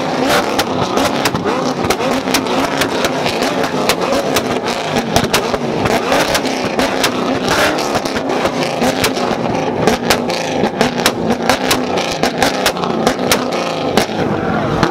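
A C7 Corvette's V8 revving hard and repeatedly in a rev battle, with many sharp pops and cracks throughout, over a crowd.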